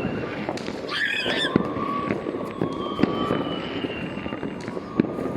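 Fireworks and firecrackers going off on all sides: a continuous crackling scattered with sharp pops and several louder bangs. About a second in there is a brief shrill screech, and thin steady whistling tones hang over the crackle.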